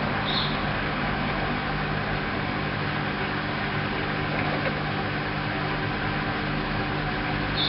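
Hoover washing machine running steadily in its first intermediate spin, the motor giving an even hum.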